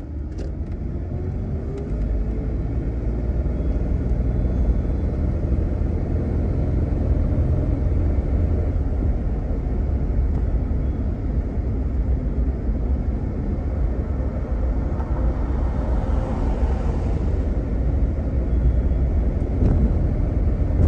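A car being driven, heard from inside the cabin. The engine pulls away with a rising tone over the first two seconds, then engine and tyre noise carry on steadily at road speed, with a brief hiss about sixteen seconds in. The car has a freshly rebuilt AX4S automatic transmission with a Transgo shift kit and is running well.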